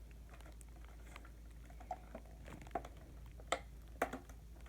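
Handling noise from unpacking a boxed horn strobe: scattered light clicks, taps and rustles of packaging and plastic, with a few sharper knocks in the second half.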